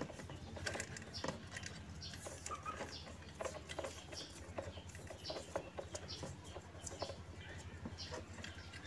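Soft, irregular crackles and clicks of electrical tape being unrolled and wrapped around spliced motor wires, with the wires rustling, over a faint low hum.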